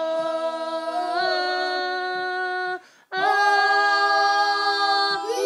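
Young boys and a woman singing a Māori waiata unaccompanied, in two parts, drawing out the closing words in two long held notes. The first note steps up slightly about a second in, and a short break near the middle separates it from the second.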